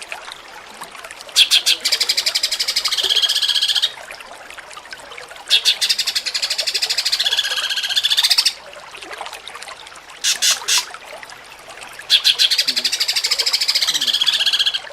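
Cucak cungkok songbird singing in the jengking munting style: three phrases, each starting with a fast rattling trill and running into warbled whistles that drop in pitch at the end, with two short calls between the second and third phrase.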